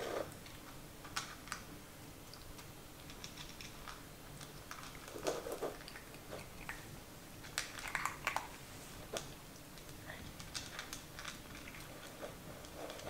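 Yorkshire terrier puppy eating from a bowl: irregular small clicks and crunches of chewing, and of food and teeth knocking against the bowl, with a few louder clusters about five and eight seconds in.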